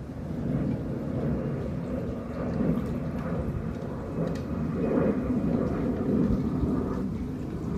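Outdoor ambience: a steady low rumble of wind or distant traffic, with a faint, far-off outdoor warning siren tone just audible above it.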